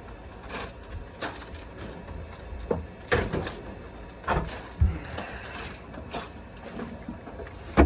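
Scattered knocks and clunks of equipment being handled and set down, about a dozen in all, the loudest near the middle, over a low hum.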